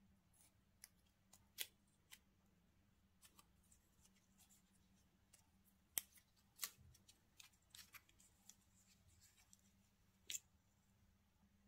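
Faint, scattered crinkles and sharp clicks from a coiled USB-C charging cable being handled and its wrap band pulled off, with a few louder clicks among them.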